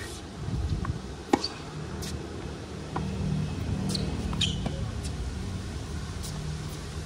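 Tennis rally on a hard court: sharp racket-on-ball strikes and ball bounces, the loudest about a second and a half in, with a few short shoe squeaks, over a steady low hum.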